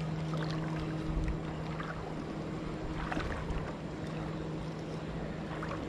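Steady rush of water running through a shallow creek riffle. A steady low hum sits under it and fades about two seconds in, and a few faint short high sounds come through.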